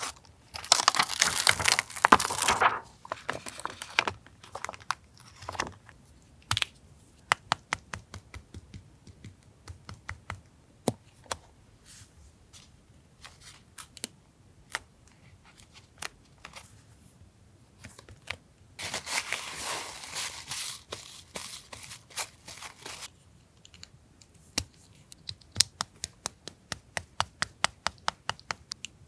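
Paper tearing and crinkling in two spells, one at the start and one about two-thirds of the way through. Between and after them come scattered sharp clicks and taps of paper and stationery being handled.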